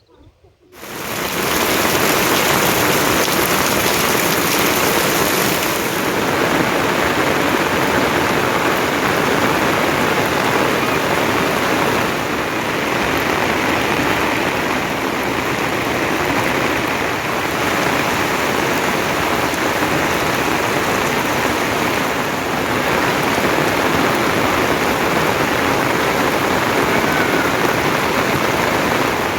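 Steady rain pouring down, coming in abruptly about a second in.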